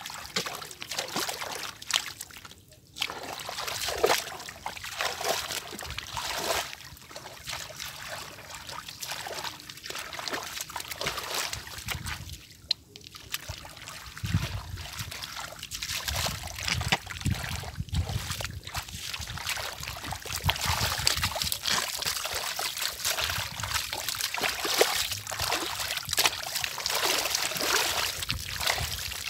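Hands sloshing, splashing and squelching through shallow muddy water and soft mud in a flooded rice paddy, in an irregular run of small splashes and dribbles.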